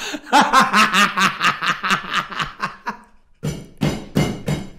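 A man laughing hard: a rapid run of 'ha' pulses, about five a second, then after a short pause a few breathy, wheezing bursts of laughter.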